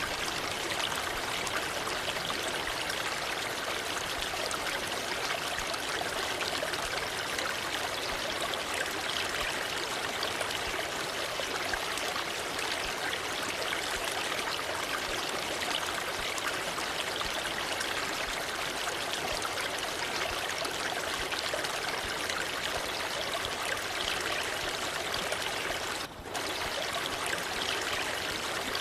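Waterfall rushing in a steady, even hiss of falling water, with a split-second dropout near the end.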